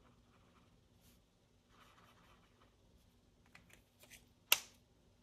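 Felt-tip marker rubbing faintly on a paper challenge card as squares are coloured in, with small handling ticks, then a single sharp click about four and a half seconds in.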